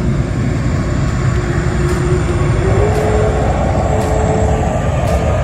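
Four-engined Airbus A380's jet engines running as the airliner taxis close by: a steady rumble with a thin whine that rises slightly and grows louder about halfway through.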